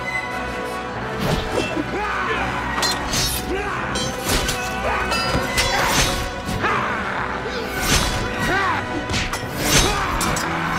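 Film soundtrack of a fight: dramatic score with repeated heavy blows, crashes and swishes throughout, the loudest hit near the end.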